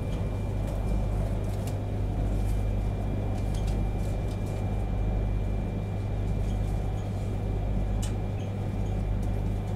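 Cabin noise inside a running E3-series Shinkansen train: a steady low rumble with a faint high steady whine and a few light ticks.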